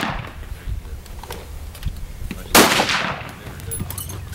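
A single high-power rifle shot from the firing line about two and a half seconds in, with a ringing echo that dies away over about a second. The echo of the previous shot is still fading at the start.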